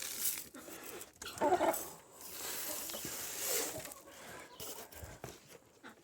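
Short animal calls from the farmyard, one about one and a half seconds in and another about three and a half seconds in.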